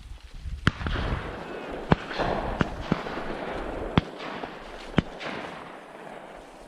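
Shotguns firing at doves: about six shots over some four seconds, several sharp and loud, a couple fainter and farther off, each with a short echo trailing after.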